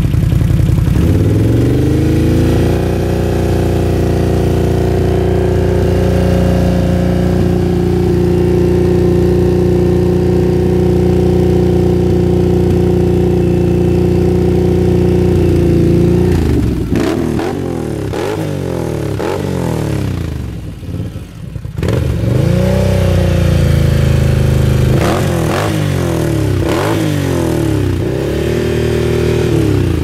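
Can-Am Outlander 800R XMR's Rotax V-twin running through a Speedwerx slip-on exhaust. It is revved up about a second in and held at a steady high rpm for a sound-level reading until about sixteen seconds. After that the throttle is blipped over and over in rising and falling revs, with one more short steady hold in the middle.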